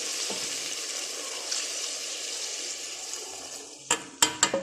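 Vegetables sizzling in a cooking pot, a steady hiss that fades away over the last second. Then a few sharp clanks of kitchenware on the pot.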